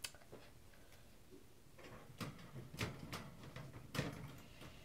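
Several faint clicks and light knocks with some rustling, spaced about half a second to a second apart, starting after a quiet second or two.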